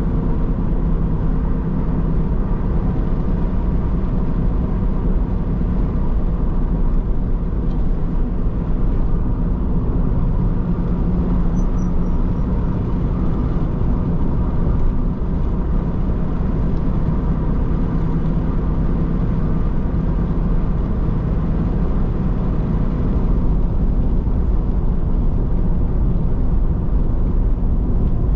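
A car driving along at a steady pace: continuous low rumble of engine and tyre road noise with a faint steady hum, no sudden events.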